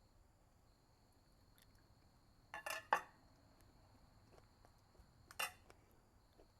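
Cutlery clinking against a plate: a quick cluster of clinks about two and a half seconds in, then a single clink near the end.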